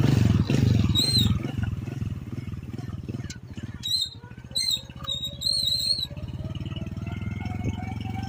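Small motorcycle engine running as the bike rides along a dirt track, a quick even pulsing that is loudest in the first second or two and then settles to a steady level. A few short high chirps sound over it about a second in and again between about four and six seconds in.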